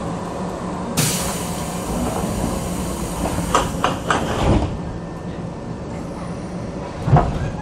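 Inside a Keisei 3500-series commuter car standing at a station: the car's pneumatic sliding doors work, with a sudden hiss of air about a second in, a few sharp clacks and a heavy thump as the doors stop, then another thump near the end. The car's equipment hums steadily underneath.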